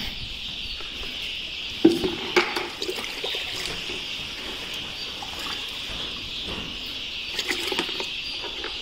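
Water mixed with IBD vaccine being poured from a bucket into plastic chick drinkers, with a couple of knocks about two seconds in.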